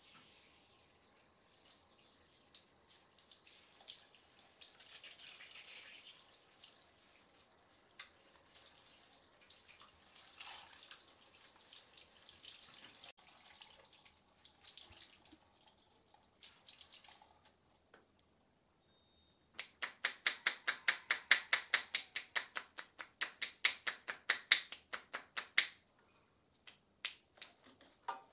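Hands massaging long wet hair and scalp during a hair-wash, with soft wet rubbing and dripping. About two-thirds of the way in comes a quick, even run of sharp hand taps, about six a second for some six seconds, the loudest sound here.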